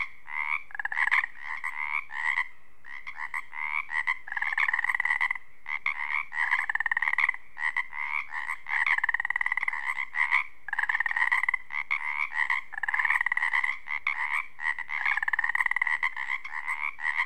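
A chorus of Pacific chorus frogs (Pacific tree frogs): many males calling at once in runs of short, rapid, overlapping croaks. This is their spring mating chorus, by which the males attract females.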